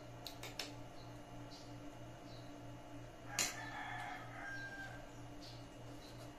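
A rooster crowing once in the background, starting sharply about three and a half seconds in and lasting about a second and a half. A few light clicks of a spoon on a plate come near the start, over a steady low hum.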